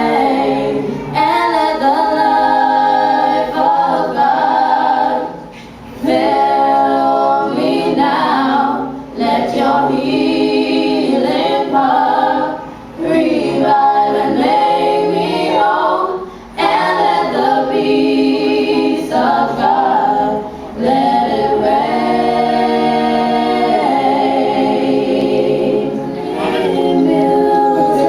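An a cappella vocal group singing with no instruments, in phrases broken by short pauses every few seconds.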